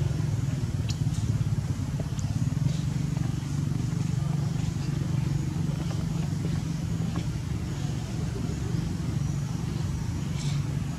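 A steady low engine hum, like a motor vehicle running, with a few faint short clicks over it.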